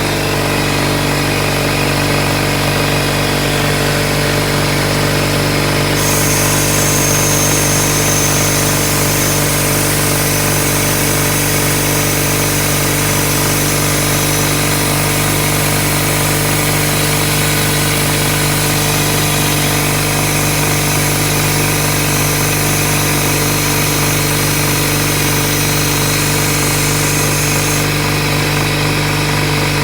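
Two teed-together electric air compressors running at once, a steady, loud motor-and-pump drone with an even hum as they build tank pressure. A high hiss of air joins about six seconds in and stops near the end.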